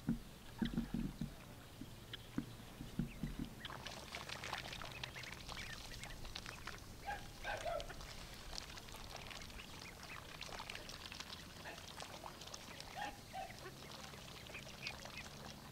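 Domestic ducks dabbling and feeding in shallow muddy water: a dense run of quick wet clicks and splashes from their bills, with a few short quacks now and then. A handful of low thumps come in the first few seconds.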